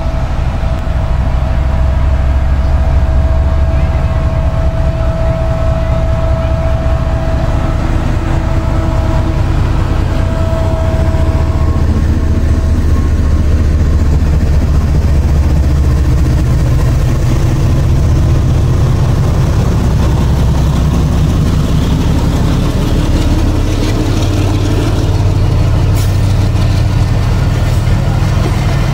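GE U40 diesel-electric locomotive running loud and steady under load as it hauls a passenger train past at close range, followed by the coaches rolling by on the rails.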